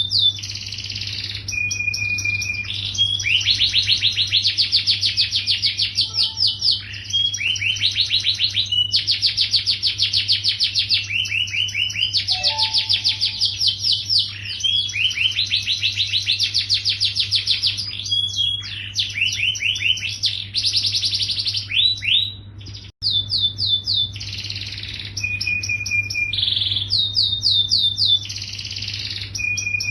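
Yellow domestic canary singing continuously: long, very fast trills of high notes, broken by short held whistles, with a steady low hum underneath and a brief break a little over two-thirds of the way in.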